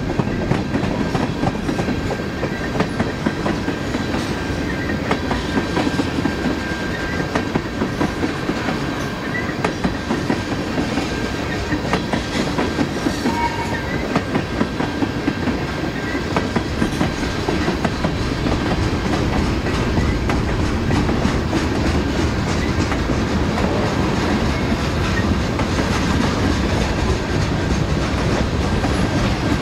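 Freight train cars rolling past, their wheels clicking regularly over rail joints over a steady rumble; the clicking evens out into a steadier, slightly louder rumble in the last third.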